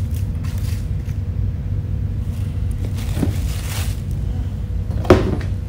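Rustling of artificial silk leaves and grapevine as leaf stems are pushed into a grapevine wreath, over a steady low rumble and faint hum. A single sharp knock about five seconds in.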